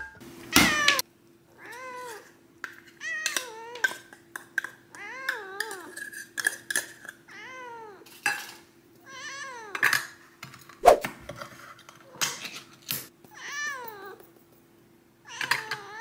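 A chocolate-point Ragdoll cat meowing over and over, about a dozen rising-and-falling meows, crying for food. A few sharp clinks and knocks of dishes and cutlery come in between, the loudest knock about eleven seconds in.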